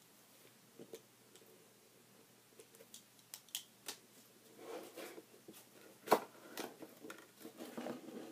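Quiet scratches and clicks as a ballpoint pen slits the packing tape on a cardboard mailer box, then rustling and scraping of cardboard as the box flaps are pulled open, with one sharp snap about six seconds in.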